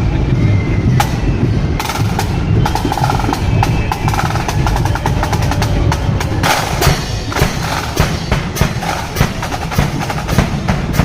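Marching band drums: rapid snare drum strokes and rolls over bass drum beats.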